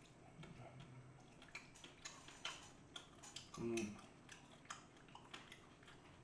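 Quiet eating sounds of a person chewing and sucking meat off bone-in chicken feet: scattered small wet mouth clicks and ticks, with a short hummed 'mm' about three and a half seconds in.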